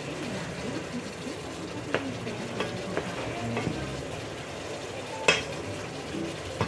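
Chicken drumsticks sizzling in caramelised sugar in a metal pot as they are stirred and turned with a wooden spoon, browning for a brown stew. The spoon knocks against the pot several times, loudest about five seconds in.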